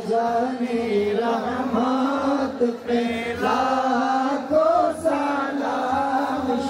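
Islamic devotional chanting by male voices, a continuous melodic line that rises and falls.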